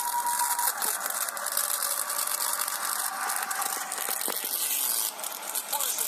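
Xiaomi Mi Pad 2 tablet's built-in speaker playing audio with a harsh, rattling wheeze of distortion, the sign of a faulty speaker. The sound is thin and lacks any bass, with a steady tone in its first second.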